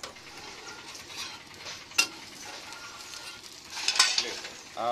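Dosa batter sizzling on a hot flat griddle. A metal spatula clinks sharply against the griddle about two seconds in, and again in a quick cluster near four seconds.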